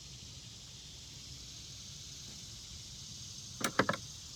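Faint steady high hiss of outdoor ambience, broken near the end by a quick run of about four sharp clicks or knocks.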